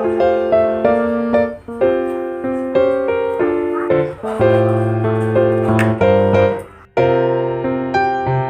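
Background music: a gentle piano or electric piano piece playing chords and a melody at an even pace, with a short break about seven seconds in.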